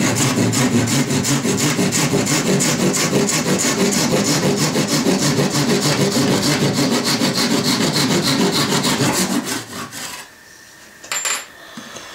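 Japanese-style pull saw cutting through a small wooden pen blank in a wooden miter box, with fast, even back-and-forth strokes. The sawing stops about nine and a half seconds in, followed by a single light knock.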